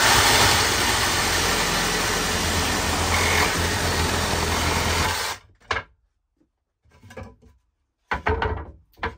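Evolution R150 cordless reciprocating saw running at full speed, its blade sawing through the nails that hold a pallet board to the stringer; it runs steadily for about five seconds and then stops. A few wooden knocks follow as the freed board is lifted away.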